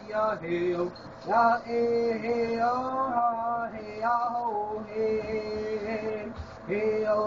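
A man singing, holding long notes and sliding up into some of them, with short breaths between phrases.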